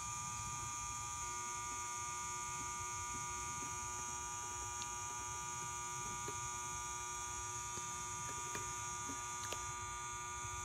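Steady electrical hum made of several constant tones over a high hiss, with a few faint ticks.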